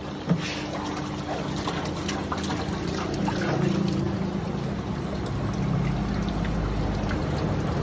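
Water sloshing and bubbling in a koi quarantine tank as a hand swishes through it, over a steady low hum.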